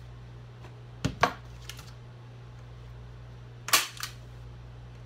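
Hand staple gun loaded with T50 staples firing into a wooden stretcher bar through canvas, twice: a sharp crack about a second in and another near the end, each followed closely by a lighter click.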